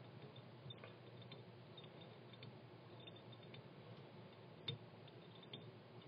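Near silence: room tone with a few faint ticks and one sharper click about three-quarters of the way through.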